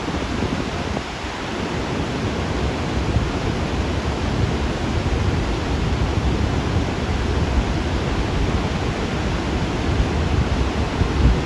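Steady rush of high-volume water released through the open floodgates of Table Rock Dam, with an uneven low rumble underneath.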